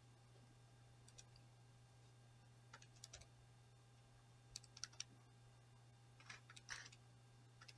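Faint clicking of the keys on a Texas Instruments TI-30X IIS calculator as a long number is typed in, the presses coming in small clusters.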